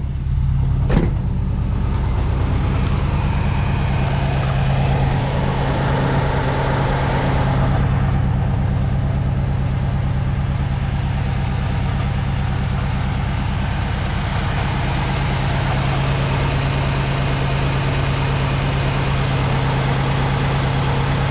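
2006 Subaru WRX's turbocharged flat-four engine idling steadily, with a brief click about a second in. The engine is shaking badly on its mounts, which the owner suspects are the worn stock motor mounts.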